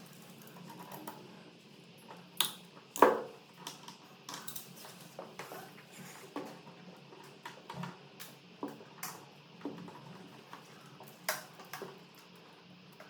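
Irregular clicks, taps and clinks of hand tools and small plastic and metal parts as wall sockets and switches are taken apart and fitted. The loudest knock comes about three seconds in.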